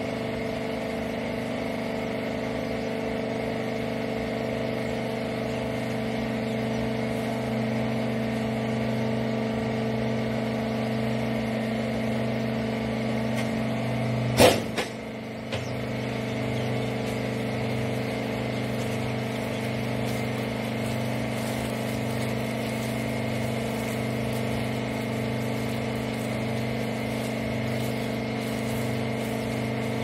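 Hydraulic power unit of a horizontal rag baler running with a steady hum. About halfway through there is one sharp bang, then the hum drops for about a second before it picks up again.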